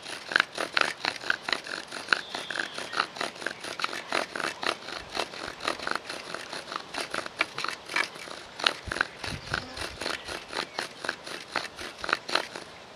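Bow drill in use: the wooden spindle spins back and forth in the hearth board's notch with each stroke of the bow, giving rapid rhythmic scraping squeaks, a few a second. The friction is hot enough to make smoke and blacken the wood.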